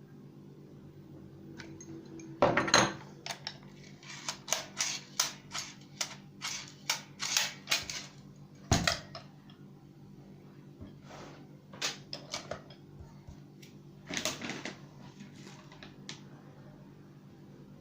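Hand-operated tobacco rolling machine being worked and handled: sharp clicks and clacks in irregular runs, several a second at their densest, with a single louder knock partway through.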